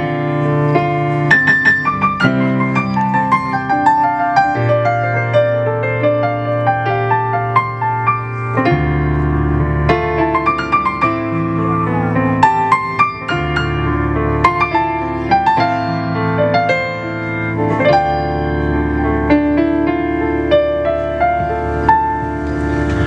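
Electric piano playing a passage of chords and struck notes over long held bass notes.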